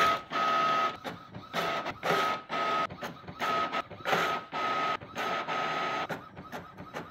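Inkjet printer printing a page: the print head sweeps back and forth in short, repeated passes, one to two a second, each with a steady high whine and brief gaps between.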